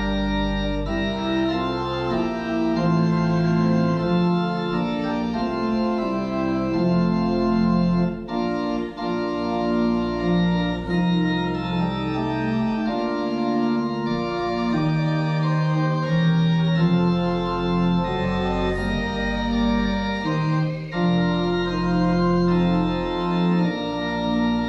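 Church organ playing a hymn tune in slow, held chords that change every second or two.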